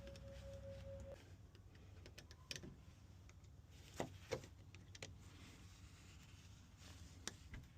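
Faint, scattered metallic clicks and ticks of key extraction tools working in a door lock cylinder to pull out a broken key, with a pair of sharper clicks about four seconds in. A faint steady tone stops about a second in.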